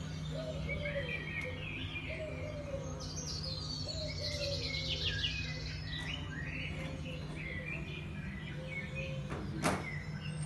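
Many birds chirping and singing from a nature film's soundtrack played over cinema speakers, with a steady low hum underneath. A quick rising sweep sounds near the end.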